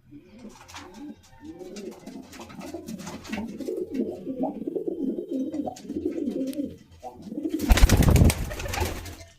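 Domestic pigeons cooing: low, warbling calls repeated over several seconds. Near the end comes a loud rushing burst of noise, lasting about a second and a half.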